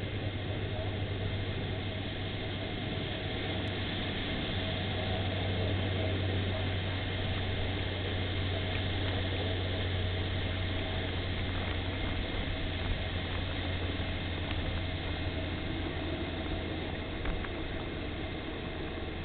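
Steady wash of ocean surf breaking on a sandy beach, an even noise without breaks, over a constant low hum.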